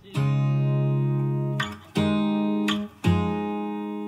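Background music: a guitar playing three held chords, each left to ring out before the next.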